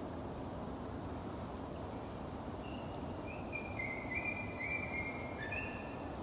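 Steady low outdoor background rumble, with a run of short, high, thin calls starting about two and a half seconds in, several overlapping at slightly different pitches.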